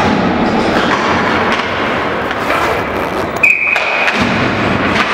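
Ice hockey play on an indoor rink: skates on the ice and sticks and the puck knocking, over a steady noise. A short, high whistle blast comes about three and a half seconds in.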